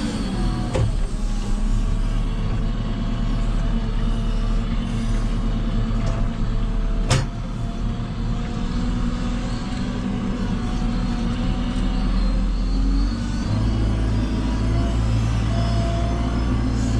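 JCB 3CX backhoe loader's diesel engine running under working load, its pitch shifting as the machine works and rising about 13 seconds in. There is a single sharp knock about 7 seconds in.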